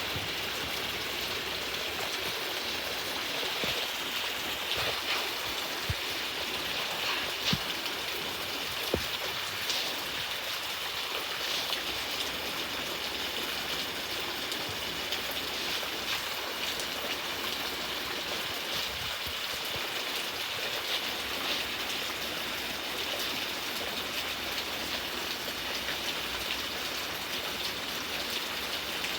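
Steady rain falling, a continuous hiss with scattered sharper drop hits.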